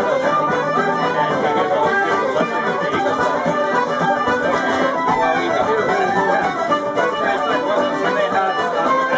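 Live Irish traditional session music: several acoustic instruments playing a tune together.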